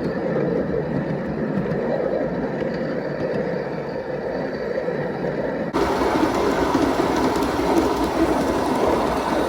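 Live-steam Aristo-Craft 0-4-0 model locomotive running under steam, its exhaust chuffing from the cylinders after a valve-timing adjustment. About six seconds in the sound cuts abruptly to a louder, brighter take of the running engine.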